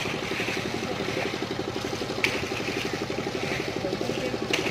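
A small engine running steadily with a fast, even pulse. Two sharp clicks come about two seconds in and near the end.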